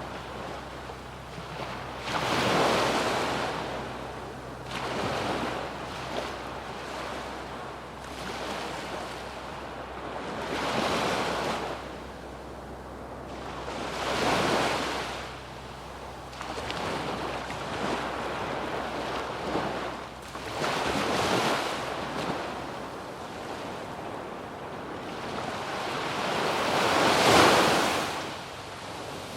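Small waves breaking and washing up a sandy beach, each swell rising and fading over a couple of seconds, about seven in all, the biggest near the end, with a little wind on the microphone.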